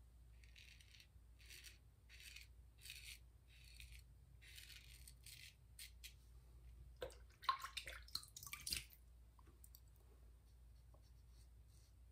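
Ever Ready 1914 safety razor scraping through lather and the little stubble left on a third pass: a run of short, soft rasping strokes about every half second, then a louder cluster of scraping and clicks about seven to nine seconds in.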